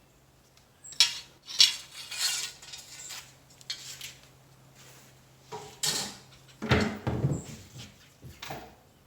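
Irregular clattering and clinking of hard objects being handled, about a dozen sharp knocks over several seconds, with a heavier, deeper knock a little past the middle.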